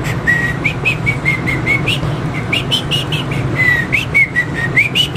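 Small dog, a Shih Tzu, whining: a quick run of short, high-pitched whimpers, some rising and some falling in pitch, about three or four a second with a brief break near the middle.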